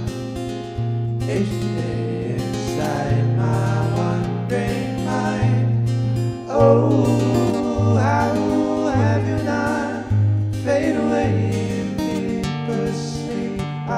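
Acoustic guitar strummed in chords over held bass notes that change about once a second, with a singing voice coming in about halfway through.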